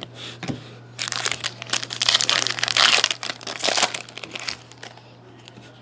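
Foil trading card pack wrapper being torn open and crinkled by hand: a dense run of crackling from about one second in to about four seconds, then a few fainter rustles.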